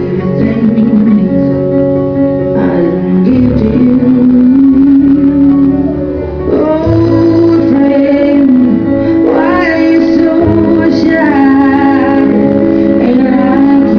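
A song playing: a singing voice over a backing with guitar, steady and loud, with a short dip in level about halfway through.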